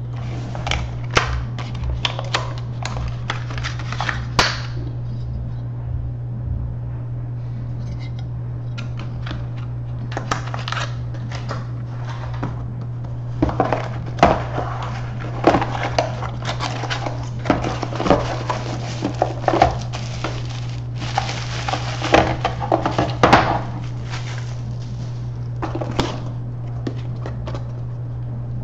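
Irregular clicks, knocks and light rattling, as of small hard objects being handled, coming in busy clusters near the middle and later part, over a steady low hum.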